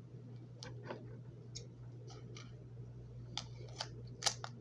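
Scattered light clicks and ticks, about ten at irregular spacing, from handling paper craft pieces and tape, over a steady low hum.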